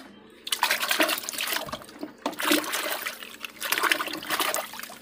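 Water splashing and sloshing in a bucket as a hand swishes a small toy car through it to wash it, in three bouts.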